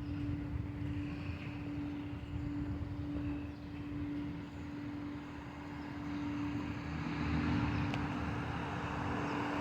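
Road traffic noise: a low rumble under a steady hum, swelling over the last few seconds.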